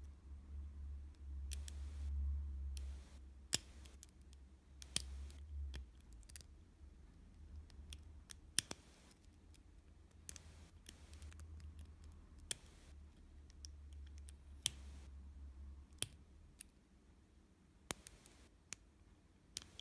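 Lock pick and tension wrench working the pins of a stainless steel padlock: irregular, scattered small metallic clicks with a few scrapes, over a low handling rumble that comes and goes.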